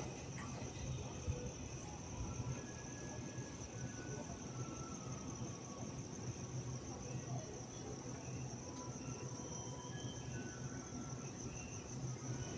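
Crickets chirring in one continuous high-pitched trill over a steady low hum, with faint scattered short tones here and there.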